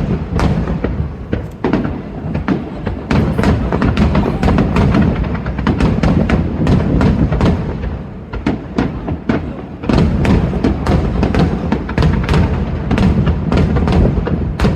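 Fireworks going off in a dense barrage: deep booming bursts and sharp cracks in quick succession, heavy in the bass, easing briefly about halfway through before building again.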